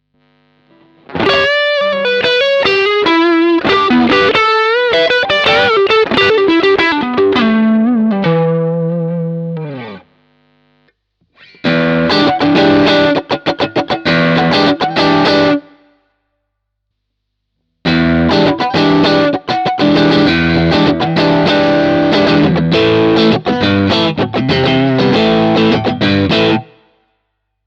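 Electric guitar through an overdrive pedal: a lead phrase with bent and wavering notes that ends in a falling slide, then, after a short break, two stretches of choppy, rhythmic overdriven chord riffing with a brief stop between them.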